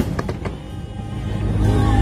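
Show music playing loudly over outdoor speakers during a fireworks display, with a sharp firework bang right at the start and a few fainter pops just after it.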